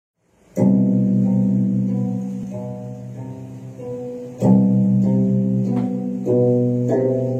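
Plucked string instrument music: a low chord struck about half a second in and left to ring while single higher notes are picked over it, then a second chord struck about four seconds later.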